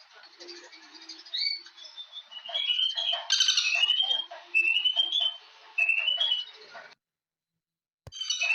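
Birds singing and calling, one repeating a short rising whistled phrase about once a second among other chirps. The sound cuts out to silence about seven seconds in and returns a second later with a click.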